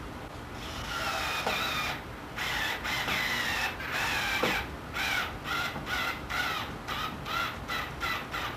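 A wood screw squealing as it is driven by hand into the painted birdhouse rail: a run of short, raspy squeaks that quicken into an even series of about three a second.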